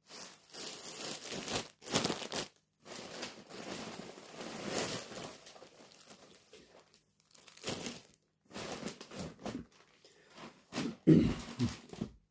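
Clear plastic clothing bags crinkling and rustling as they are handled, in several irregular bursts with short pauses between them; the loudest crinkle comes near the end.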